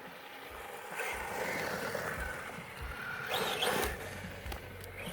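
Brushless electric motor of a 1/10 Losi 10SCTE short-course RC truck whining as it drives, the pitch rising and falling with the throttle, with a short louder burst of noise about three and a half seconds in.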